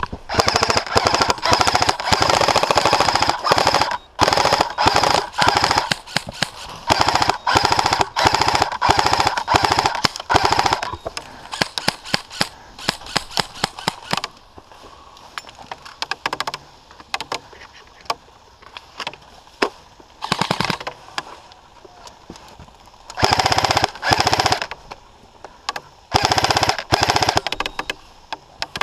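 Airsoft electric guns firing on full auto: almost continuous rapid bursts for roughly the first ten seconds, then scattered shots and short bursts, with a loud burst about two-thirds of the way through.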